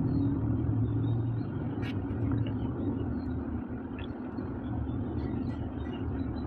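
A steady low rumble, with a few faint clicks as a tiny plastic Nendoroid accessory is handled in the fingers.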